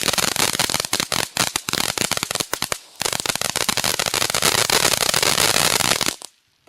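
Happy Family 'Game On' firework fountain in its crackling stage: dense, rapid crackling that thins out about a second in, turns dense again and stops abruptly about six seconds in as the fountain burns out.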